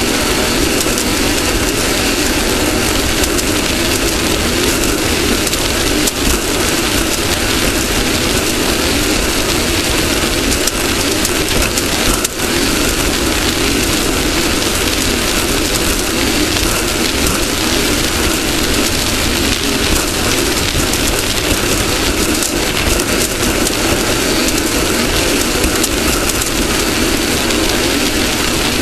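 Off-road race car running at speed: a steady, loud mix of engine and road noise, with one brief dip about twelve seconds in.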